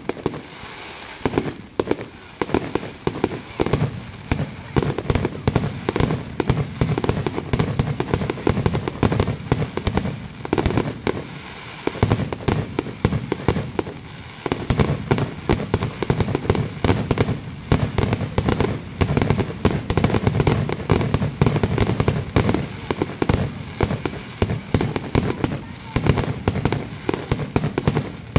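Aerial fireworks shells bursting in a dense, rapid barrage of bangs, several a second, with short lulls about twelve and fourteen seconds in.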